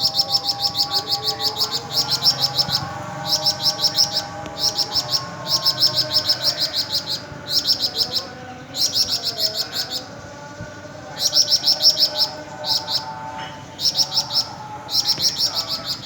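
A songbird singing a 'beset' song: bursts of rapid, high repeated notes, each burst about a second long, separated by short gaps. A fainter, lower whistling runs underneath.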